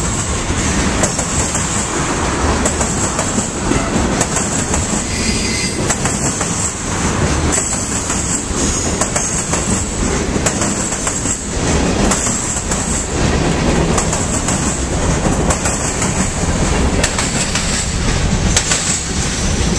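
CSX freight cars rolling past close by, with a continuous rumble and the wheels clicking and clattering over the rails.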